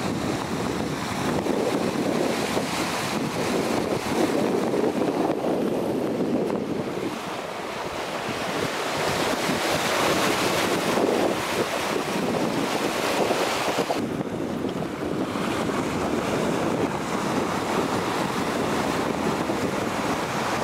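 Wind buffeting the microphone and sea water rushing along the hull of a sailing yacht under way, the noise swelling and easing with the gusts and waves.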